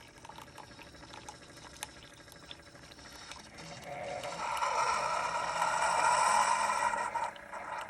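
Coffee maker dispensing: liquid pouring, swelling in about halfway through and cutting off suddenly near the end, with a few small clicks before it.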